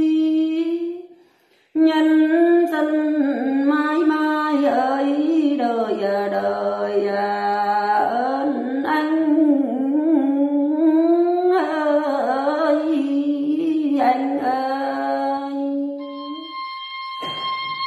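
A woman singing solo and unaccompanied in a Tày folk style, her voice sliding and ornamenting between held notes, with a brief breath pause about a second in. Near the end the singing stops and an instrumental melody begins.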